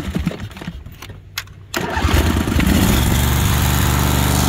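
Briggs & Stratton Vanguard 16 hp V-twin on a Cub Cadet 1641 mower being cranked unevenly, catching a little under two seconds in and settling into a steady run. The engine is worn, with serious blow-by.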